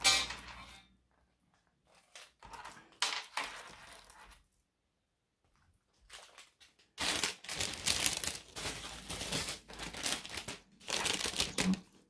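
Plastic packaging crinkling and rustling as it is handled, in irregular spells, quiet for a moment in the middle and busiest in the second half.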